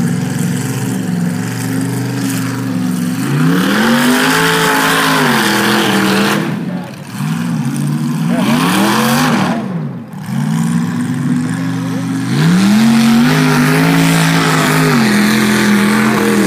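Mud bog buggy's engine revving hard as it drives through the mud pit. Its pitch climbs and drops back three times, and it holds high near the end.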